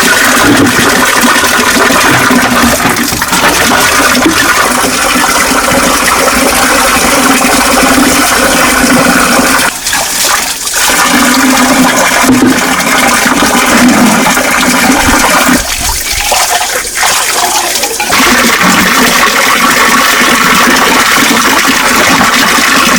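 A steady rush of running water, loud and continuous, dropping briefly twice.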